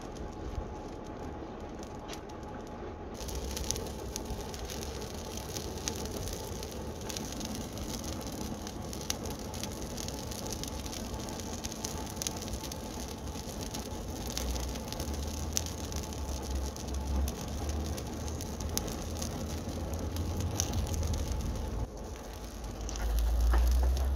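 Fire burning in a homemade coal forge, crackling and popping over a steady whir from the electric blower feeding air under the fire pot. Wind rumbles on the microphone, strongest near the end.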